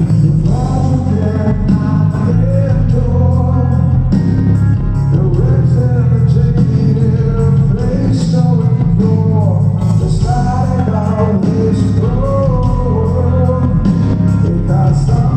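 A rock band playing live: a dense, loud wall of guitars, bass and drums, with a man singing the lead melody over it.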